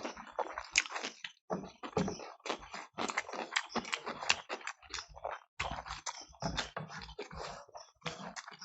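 Chewing and wet mouth smacking from eating rice and curry quickly, a rapid, irregular run of short smacks and clicks.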